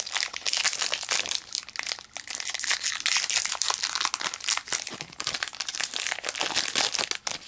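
Foil wrapper of a Pokémon trading card booster pack crinkling and crackling as it is torn open by hand, a dense run of quick sharp crackles.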